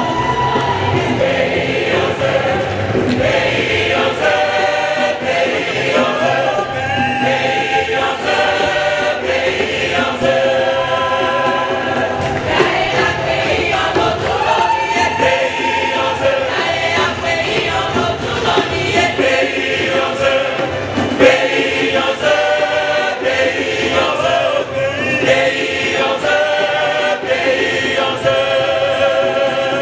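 Church choir singing, many voices together in a sustained sung melody.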